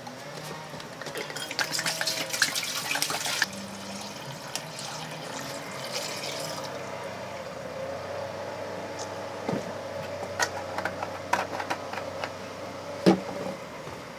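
Water running and pouring into a vessel as it fills, with a louder rush of water early on and a few clicks and knocks.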